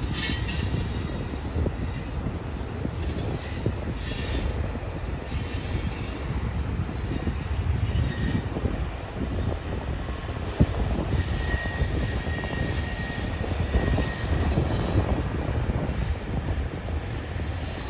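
Freight cars (tank cars, covered hoppers and boxcars) rolling past: a steady rumble of wheels on rail, with thin high wheel squeals coming and going, the longest a few seconds past the middle. There is a single sharp knock about ten and a half seconds in.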